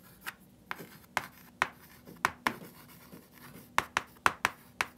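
Chalk writing on a chalkboard: a dozen or so sharp taps and short scrapes at an uneven pace as a line of words is written out, with a pause of about a second midway.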